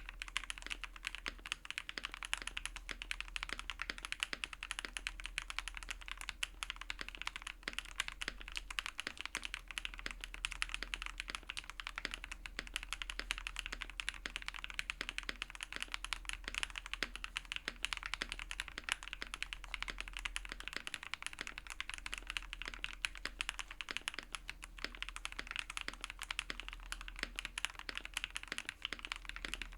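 Custom mechanical keyboard with Gateron Milkshake linear switches, typed on continuously: a fast, unbroken stream of keystrokes.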